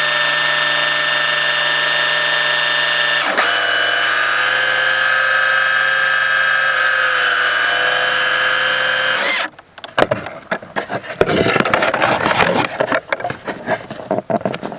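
Small electric motor of a toy RC boat whining steadily, its pitch dropping slightly about three seconds in, then cutting off about two-thirds of the way through. Irregular knocks and scrapes follow as the boat is handled.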